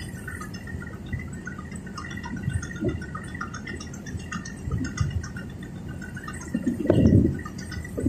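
Water sloshing and splashing along the hull of a moving excursion boat over a steady low rumble, with a louder surge about seven seconds in.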